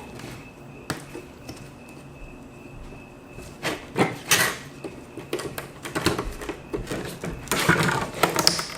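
Small plastic clicks, taps and scraping as a laptop's webcam module is pried loose from the display assembly, which has no screws holding it. There are a couple of single clicks at first, then busier bursts of clicking and rubbing around the middle and near the end.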